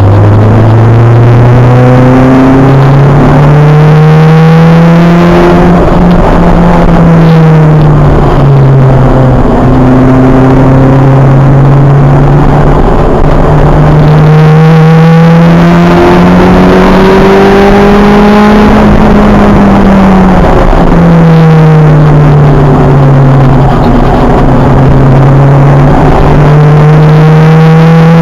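Acura Integra race car's four-cylinder engine, heard from inside the car, running hard on track: its note climbs under acceleration, drops sharply twice (about five seconds in and again past the middle) and climbs again, over steady wind and tyre noise. Very loud throughout.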